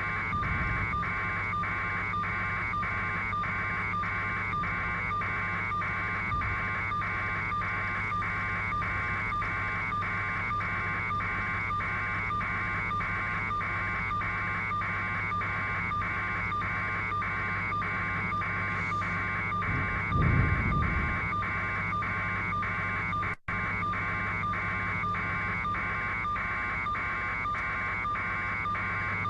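Helicopter cabin noise heard through the onboard headset microphone: a steady pulsing drone from the rotor and engine. There is a brief low rumble about two-thirds through and a momentary dropout soon after.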